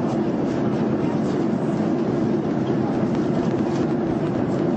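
Steady, unchanging engine and airflow noise of an airliner in flight, heard inside the cabin.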